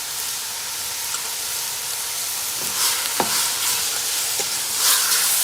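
Beef tongue sizzling in hot oil and lemongrass paste in a pot over high heat, stirred with a utensil. The sizzle surges twice as it is stirred, with a sharp knock of the utensil about three seconds in.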